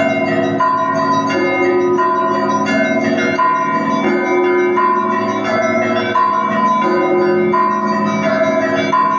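Russian Orthodox monastery bells rung together in a steady repeating peal: several bells of different pitch sound at once, with strokes coming round in a regular pattern about once a second.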